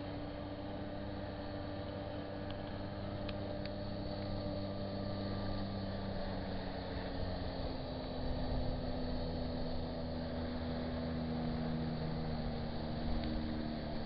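Motorboat engine running steadily, its pitch rising slightly about halfway through.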